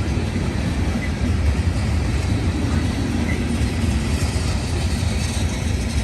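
CSX freight train rolling past close by: a steady, loud rumble of wheels on rail with no breaks in it.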